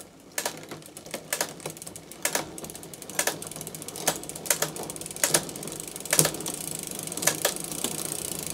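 SRAM Eagle 12-speed drivetrain being shifted through the cassette cog by cog with the cranks turning. Sharp shift clicks come about once a second over the steady running of the chain, which grows louder about three seconds in. This is a test of the gear indexing just after a quarter-turn cable tension adjustment.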